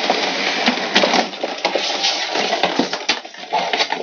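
Clear plastic blister tray crinkling and crackling as it is handled and pulled out of a cardboard figure box, with many small clicks and a sharper click about three seconds in.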